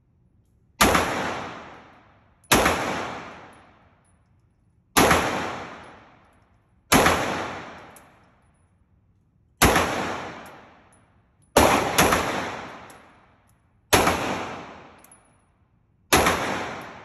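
Handgun fired slowly, shot by shot, at an indoor range: about nine sharp shots, roughly two seconds apart. Each one rings off in a long echo from the range's enclosed lanes.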